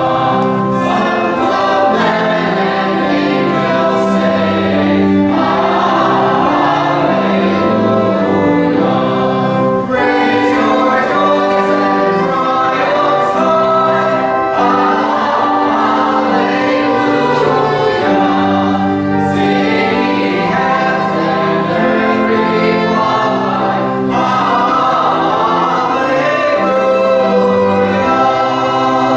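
Congregation singing a hymn, accompanied by a pipe organ holding sustained chords under the voices, with short breaks between phrases.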